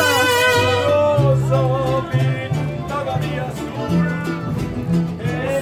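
Live mariachi band playing, with violins and guitars over a deep plucked bass line.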